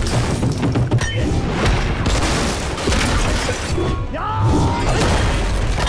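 Film fight soundtrack: dramatic music under repeated hits and the smashing of wood and crockery, with a man's yell about four seconds in.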